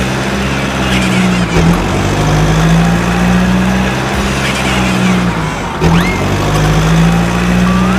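Vehicle engine running steadily with a low, even hum, briefly dipping about a second and a half in and again near six seconds.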